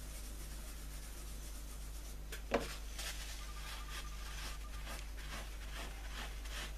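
Kitchen paper rubbing and dabbing on a radio's dial cloth wetted with degreaser: soft, repeated scuffing strokes from about three seconds in, after a single light knock, over a low steady hum.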